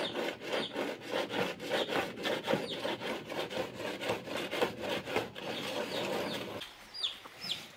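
A long thin wire being pushed and worked back and forth inside a blocked drain pipe, scraping in quick repeated strokes. The scraping stops about two-thirds of the way through, and a few short bird chirps follow near the end.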